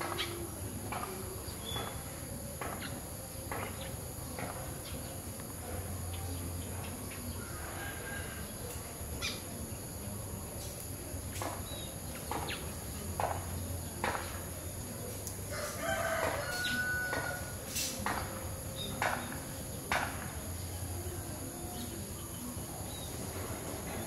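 Sparrows chirping in short, scattered chirps, with a rooster crowing and a steady high-pitched hiss underneath.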